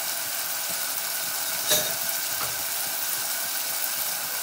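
Spiced masala with ginger-garlic paste sizzling in a saucepan on a gas burner, a steady hiss. One sharp clack comes a little under halfway through.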